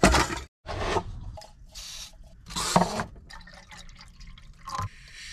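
Water being poured in three short pours, then a couple of light knocks near the end.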